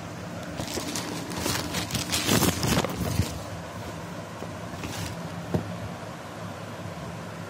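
Plastic mailer packaging rustling and crinkling as the boxed graphics card is handled, loudest about two to three seconds in, followed by a couple of light knocks against the box.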